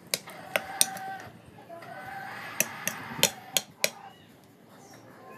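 A metal spoon clinking against a ceramic bowl while tossing a leafy vegetable salad: three sharp clinks in the first second, then five more in quick succession a little past the middle. A chicken clucks alongside, and it falls quieter near the end.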